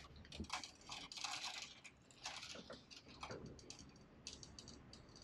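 Faint, irregular light clicks and rustling of plastic fibre-optic tube elements being handled and formed into a loop against a plastic fibre enclosure.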